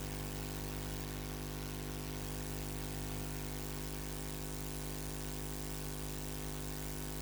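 Steady electrical hum with hiss, unchanging throughout, and no programme sound: the audio feed is not carrying the class.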